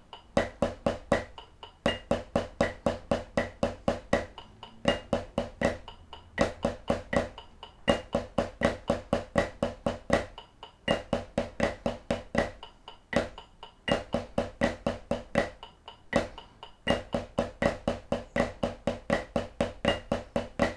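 Snare drum played with sticks in Swiss Army triplets, a flam-based triplet rudiment, at quarter note = 80. It is a steady run of strokes, about four a second, with regular accents and brief breaks every few seconds.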